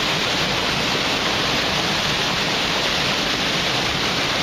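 Steady rushing of a fast mountain stream running over rocks and small rapids.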